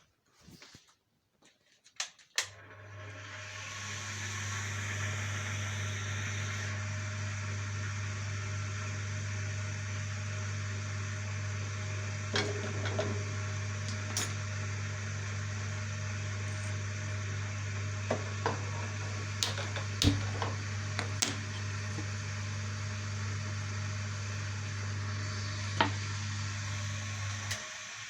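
Steady electric machine hum with a deep low drone and a hiss over it. It starts after a few clicks about two seconds in and cuts off suddenly near the end. Occasional sharp clicks and knocks sound over it.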